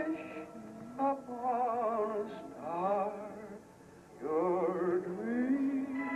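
A voice singing over music from an animated film soundtrack, holding long wavering notes in a few phrases with short breaks between them.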